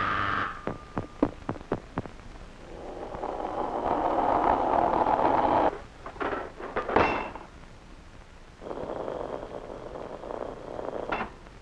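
Animated-film sound effects: a quick run of clicks and knocks, then a hiss that swells and cuts off suddenly, a few more clicks with a short upward sweep, and another stretch of hiss.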